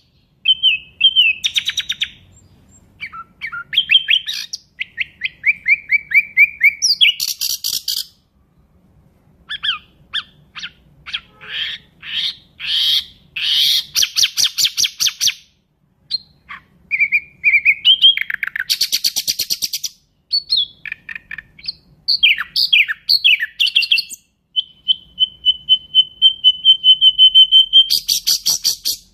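Nightingale singing a varied song in separate phrases with short pauses: fast trills and series of rapidly repeated notes. Late on comes one long, steady whistle, followed by a fast, loud trill.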